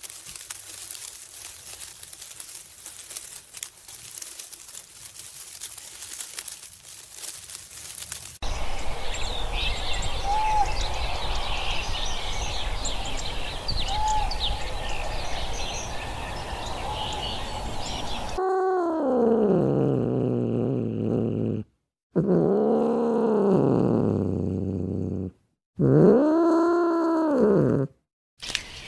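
Three long, loud calls from a large animal, each rising then falling in pitch, separated by short silent gaps. Before them, birds chirp over a low rumble.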